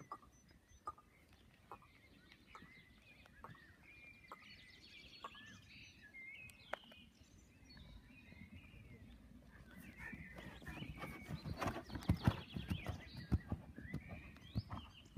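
A ridden horse's hooves beating on sand arena footing, growing louder and rhythmic about ten seconds in as the horse passes close by.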